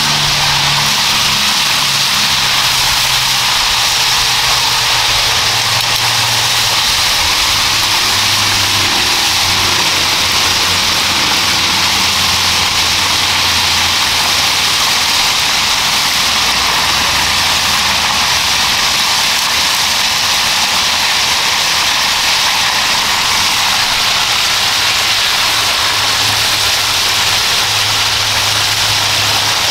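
Flour-coated chicken pieces deep-frying in hot oil in a wide steel wok: a loud, steady sizzle, with a low steady hum underneath.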